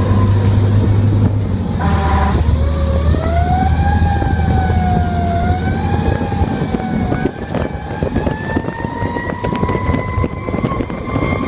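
Fire engine running with its siren, a slow wail whose pitch rises and sways up and down over the steady rumble of the engine. A brief horn blast sounds about two seconds in.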